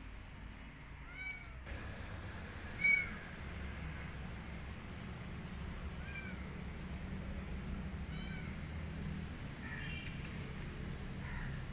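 Kitten meowing: about six short, high meows every second or two, the loudest about three seconds in, over a low steady rumble.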